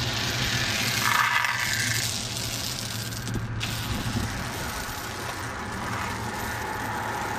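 Steel chain dragged across a concrete bridge deck, its links rattling and scraping: a chain-drag sounding test, in which a dull, hollow note marks a delamination under the surface.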